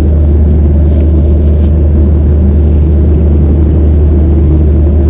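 Airliner cabin noise in flight: a loud, steady low rumble of the jet engines and airflow, unchanging throughout.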